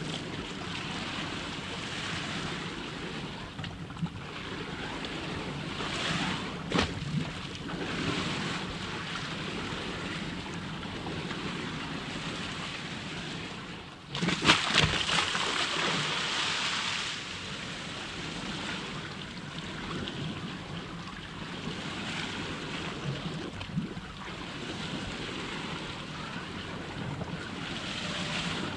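Water washing and sloshing, with a few sharp knocks and a louder rush of water about halfway through.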